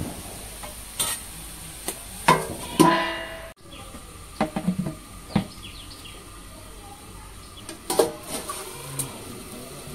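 Metal cookware clattering: a spatula stirring and scraping chicken frying in an iron wok, and steel plates knocking, with two ringing clanks between 2 and 3 seconds in and more scattered knocks later. A steady low sizzle of frying underneath.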